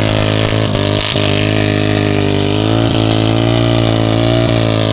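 Motorcycle engine held at a steady high throttle, labouring under load as the bike is dragged up a steep off-road slope; the pitch sags slightly now and then, with a few short knocks.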